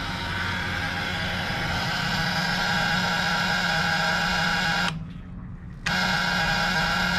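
Electric fuel pump of a fuel-injected Crusader marine engine running with a steady high-pitched buzzing whine, priming freshly reconnected fuel lines with the key on. It cuts off for about a second near the end and starts again as the key is cycled off and on.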